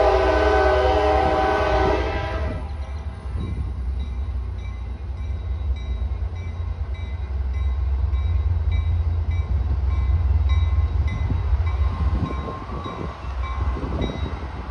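Trinity Railway Express commuter train's air horn sounding a steady chord that cuts off about two seconds in, followed by the train's low steady rumble, which eases off near the end.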